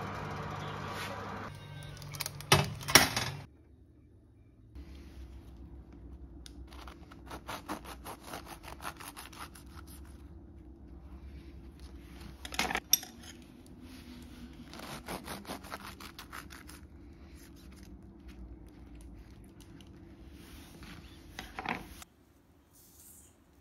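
A kitchen knife cutting through crisp, cookie-crusted choux puffs on a wooden board: runs of short, crunchy rasps, loudest about halfway through. It opens with an oven's steady hum and two loud clacks about three seconds in.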